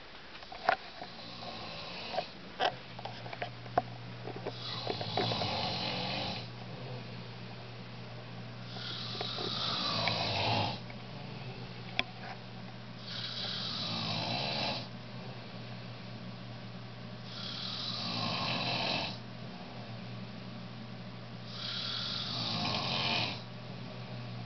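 A sleeping person snoring: five long snores about four seconds apart, each sliding down in pitch. A steady low hum runs underneath, and a few sharp clicks come in the first few seconds.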